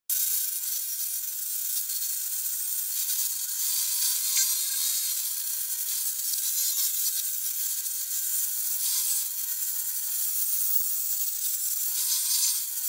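Electric grinder grinding down weld beads on a steel ax head: a steady grinding hiss over a motor whine whose pitch sags a little under load.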